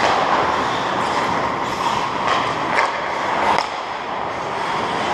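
Hockey skate blades gliding and carving on rink ice: a steady scraping hiss with several sharper scrapes as the skater strides.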